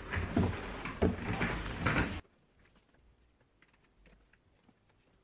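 A few soft knocks and rustles of hands handling things. The sound cuts out abruptly about two seconds in, leaving near silence with faint scattered ticks.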